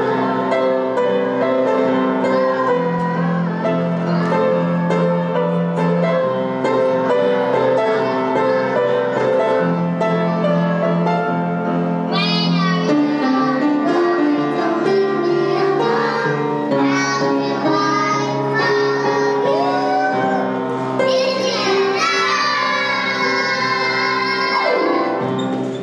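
A song: instrumental backing with sustained notes and a child's singing voice, the singing most prominent in the second half. The music cuts off near the end.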